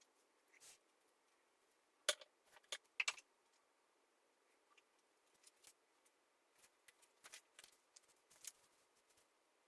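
Near silence with a scattering of faint, irregular small clicks and ticks, the sharpest about two and three seconds in.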